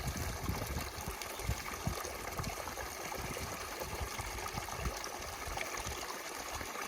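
Steady rush of flowing water, with irregular low thumps underneath.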